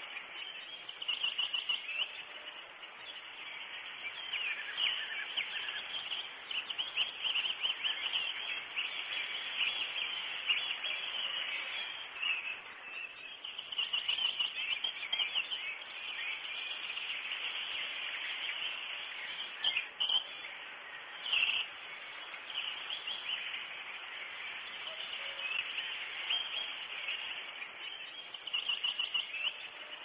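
Kestrels calling at a cliff nest: rapid, shrill, repeated chirping notes that come in bursts, with two short sharp sounds a little after twenty seconds in.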